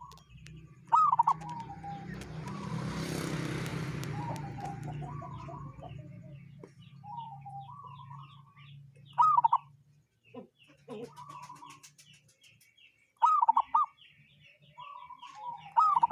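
Zebra dove (perkutut) cooing with a voice described as strange: four loud short phrases of quick hooked notes a few seconds apart, with softer calls between them. Faint high chirps of other birds, a steady low hum and a brief hiss about two to five seconds in lie underneath.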